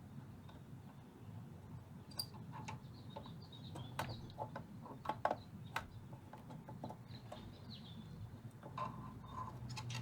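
Faint scattered clicks and light ticks of soldering tools working a solder joint on a metal amp chassis, with faint high chirping tones and a low steady hum underneath.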